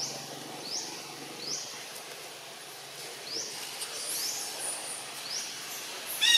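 A bird repeats a short rising call about every three-quarters of a second against forest background noise. A faint low hum stops after about a second and a half. A brief, louder call cuts in near the end.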